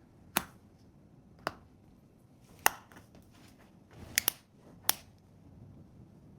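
A metal camera-lens frame being fitted onto a phone: sharp, short clicks about once a second, with two in quick succession a little past four seconds in.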